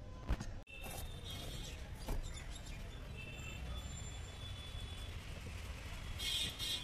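Street background noise: a steady low traffic rumble with faint voices, and two sharp knocks, one just after the start and one about two seconds in.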